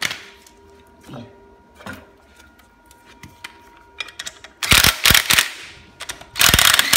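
Compact cordless impact wrench running in the bolts of a new flywheel on the crankshaft: a few light clicks and knocks as the socket and bolts are handled, then two short bursts of rapid hammering in the second half, the second ending near the end.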